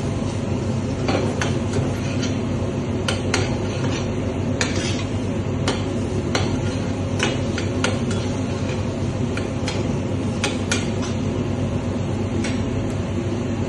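Metal ladle clinking and scraping against a stainless steel sauté pan as shrimp are stirred, in many sharp, irregular clicks. Under it runs a steady low hum.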